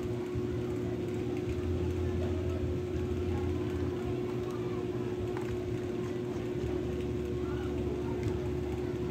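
Steady motor-like hum holding one tone, with faint voices in the background and a light click about five seconds in.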